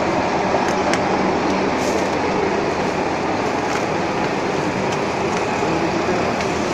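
Metal-turning lathe and shop machinery running steadily: a loud, even mechanical noise with a low hum underneath.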